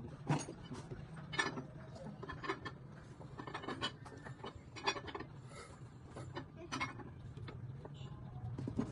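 Irregular metallic clicks and clinks of hand tools and parts being worked during engine repair, over a steady low hum.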